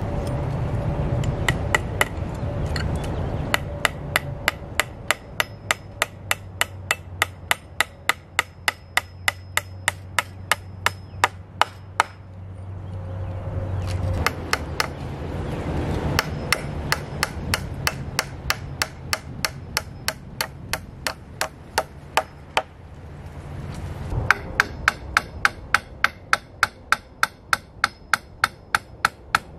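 Hammering on a wooden build: three runs of quick, even hammer blows, about two to three a second, with short pauses between the runs.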